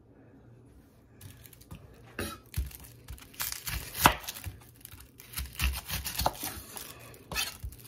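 Dry onion skin tearing and crackling as an onion is peeled, with a kitchen knife cutting through the onion and clicking against a wooden cutting board. It starts after about a second of quiet, and the sharpest knock comes about four seconds in.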